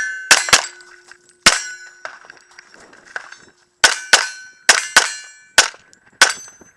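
Rapid handgun shots, about nine, fired in quick pairs and singles with short pauses between strings. Each shot is followed by the clang and ring of a struck steel target.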